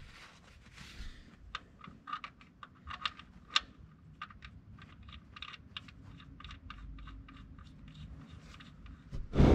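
Scattered light clicks and rubbing of hand work on the oil drain plug and the oil pan's drain-hole sealing surface, being wiped clean with a rag, with one louder knock near the end.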